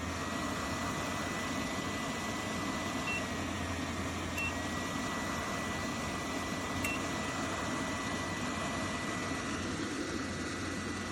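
A YIBEST ceramic fan heater's dual-motor fan running steadily, a rushing airflow with a thin high motor whine and a low hum. Three short beeps from its control panel come at about 3, 4.5 and 7 seconds.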